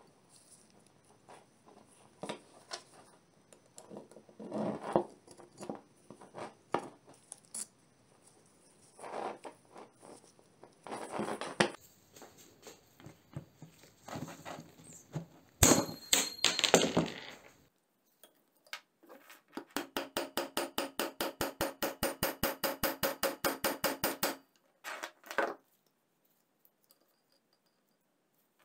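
Metal hand tools and a bicycle chain handled on a workbench: scattered clicks, taps and knocks of steel on steel, loudest in a short cluster a little past halfway. Later comes an even run of rapid clicks, about six a second, lasting some five seconds.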